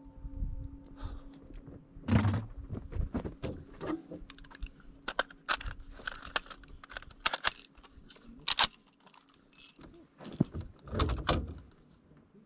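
Clicks, knocks and rattles of a rifle and gear being handled close to the microphone as a shooter kneels at a wooden barricade and brings the rifle up to aim, with a few louder knocks about 2, 8 and 11 seconds in.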